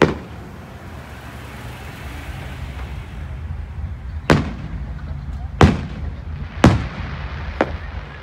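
Aerial firework shells bursting overhead: a loud boom right at the start, then three more about a second apart in the second half, and a fainter pop near the end.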